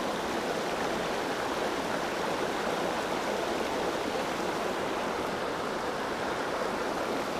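Small rocky creek running over stones: a steady, even wash of water sound.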